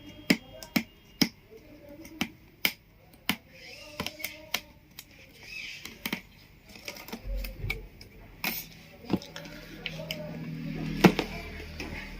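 Irregular sharp clicks and taps of a laptop's box and packaging being handled and opened, with a low thud about seven seconds in and a louder click near the end.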